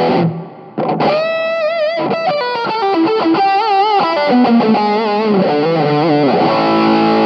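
Distorted electric guitar played through the Flatsons KE1 multi-effects pedal's amp modelling with reverb switched on: a single-note lead line with vibrato and bends, ending in a held, ringing chord near the end.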